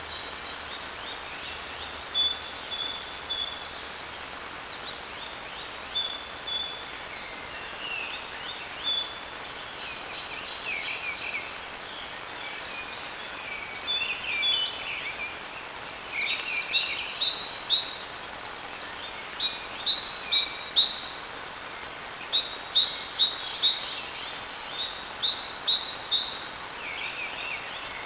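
Woodland songbirds singing, with many short chirps and quick trilled phrases that grow busier about halfway through, over a steady hiss from a trail camera's built-in microphone.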